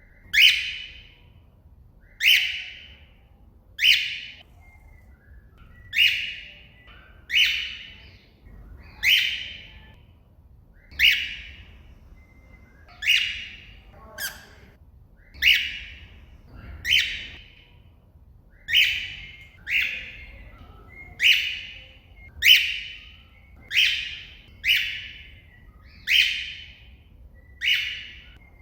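Cockatiel calling over and over: about nineteen short, loud, shrill calls, one every second or two, each with a quick downward slide. These are contact calls to another bird.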